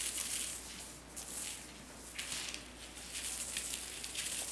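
Crinkly rustling of a Go Cat Peacock Sparkler wand toy being swished and batted by kittens, with their paws scuffling, coming in short bursts about once a second.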